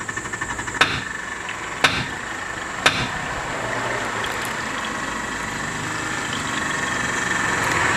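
Three sharp hammer taps about a second apart on the 2002 Ford F-150 Lightning's intercooler pump, over a steady hum and faint whine as the pump, powered through jumpers at its relay, tries to turn. The pump is stuck and failing to run.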